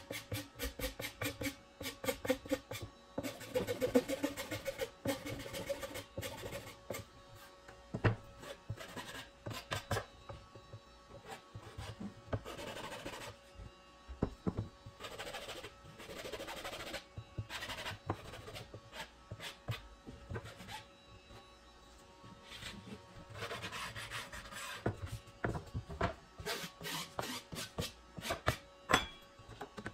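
Flat metal hand file rasping along the edge of a particleboard drawer part in quick back-and-forth strokes, in several bursts with pauses between them, over background music.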